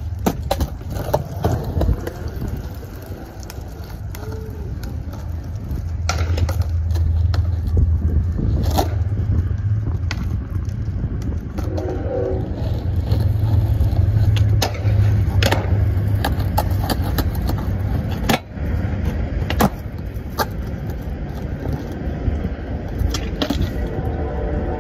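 Skateboard wheels rolling over pavement in a steady low rumble that swells in the middle, with several sharp clacks of the board hitting the ground and the concrete ledge.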